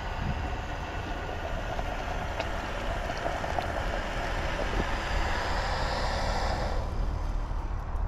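Canister gas camp stove burner hissing steadily under a pot of boiling water, with a few light clinks of the pot lid; the hiss cuts off suddenly about seven seconds in as the stove is turned off.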